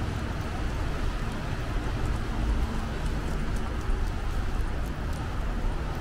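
Wind buffeting the microphone: a steady, uneven low rumble, with a few faint light ticks over it.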